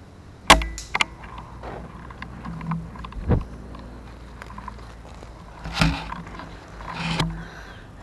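Air rifle shot: one sharp crack about half a second in, followed by a smaller click; the shot misses the dove. Then scattered knocks and rustling of the rifle being handled as the shooter moves.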